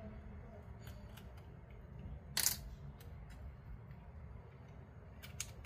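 Plastic shell of a Canon Prima Super 155 compact film camera being prised open by hand: faint scattered plastic clicks, one louder click about two and a half seconds in and a few quick ones near the end.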